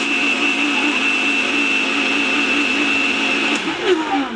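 Soni kitchen mixer grinder running at full speed with a steady high whine, blending cut apple and banana. About three and a half seconds in it is switched off and the whine falls away as the motor spins down.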